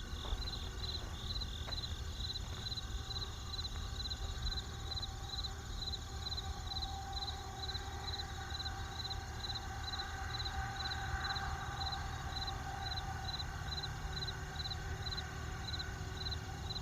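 Crickets chirping in an even rhythm, about two or three chirps a second, over a steady low rumble of distant traffic.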